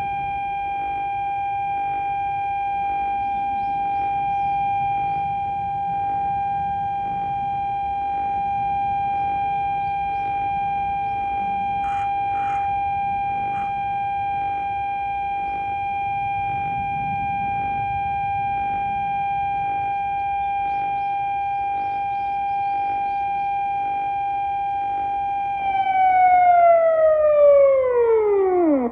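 Civil-defence siren tone sounded through a disaster-prevention radio's outdoor loudspeakers, four TOA reflex horns. It is held at one steady pitch, then about 25 seconds in it slides steeply down in pitch and dies away. This is the end of the one-minute siren that marks a moment of silent prayer.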